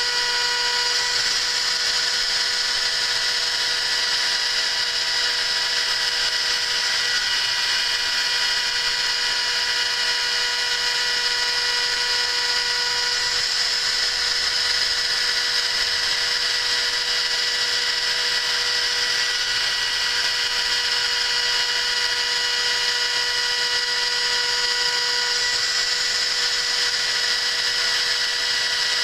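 CNC milling machine facing a raw bronze block with a 6 mm two-flute HSS end mill, taking a light 0.1 mm pass. It makes a steady whine with a high hiss from the cut, unchanging throughout.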